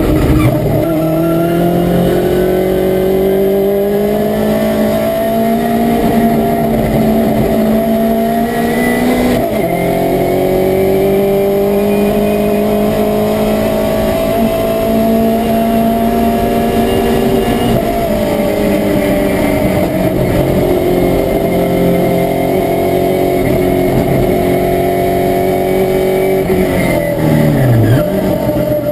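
Ford Cortina race car's engine heard from inside its stripped cabin, pulling hard under full throttle. The pitch climbs steadily, drops sharply at upshifts about nine and eighteen seconds in, and falls low near the end before picking up again as the driver lifts and changes down.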